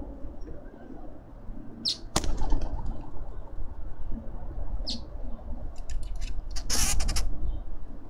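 Wings flapping as birds, a dove among them, take off from and land on a feeder: a sharp clatter about two seconds in and a longer flurry near the end. Wind rumbles on the microphone, and there are two short high bird chirps.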